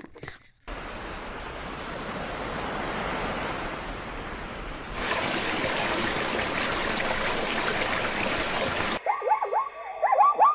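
Steady rushing river water. From about five seconds in it turns to denser splashing as brown bear cubs wrestle in the shallows. Near the end a run of short, repeated animal calls starts abruptly.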